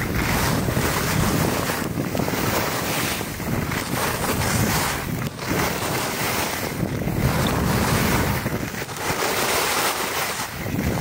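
Wind rushing over the microphone and skis hissing over groomed snow during a downhill run, swelling and easing in a rhythm of about one turn every one and a half to two seconds.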